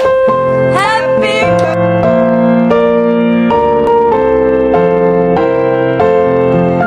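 Background music: a soft keyboard tune of sustained chords that change about every half second.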